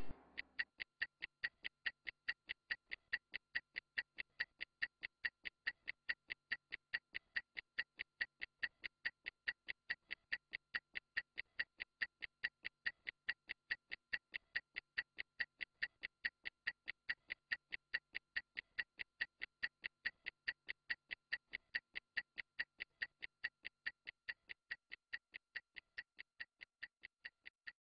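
Stopwatch ticking sound effect: a rapid, even run of faint ticks, a few a second, timing a rest interval.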